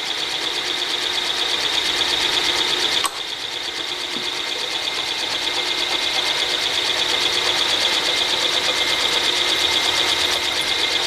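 Milling machine spindle running with a steady high-pitched whine as a drill feeds into an aluminium flange, throwing chips. A single click about three seconds in.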